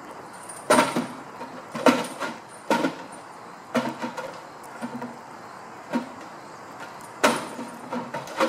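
A hanging enrichment feeder knocking and clunking in irregular strokes as a giraffe bats it with its head and sets it swinging.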